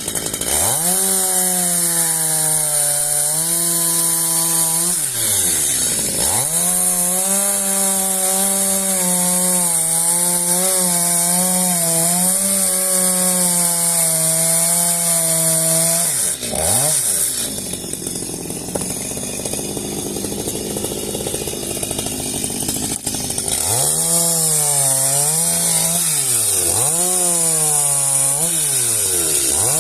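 Two-stroke chainsaw running at high revs, its pitch dropping and climbing back sharply several times as the throttle is let off and opened again. For about six seconds in the middle the engine note gives way to a rough rasping noise.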